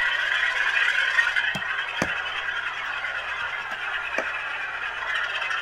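Two HO-scale Bowser RS-3 model diesel locomotives running with Loksound 5 sound decoders: a steady diesel engine sound from their small onboard speakers, with a few light clicks about one and a half, two and four seconds in.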